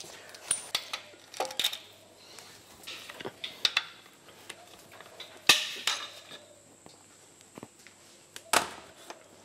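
Scattered metallic clinks and knocks of tools and parts as the main bearing caps are worked off a Holden 304 V8 block with a long bar and set down on a steel bench. The sharpest knock comes about five and a half seconds in, another near the end.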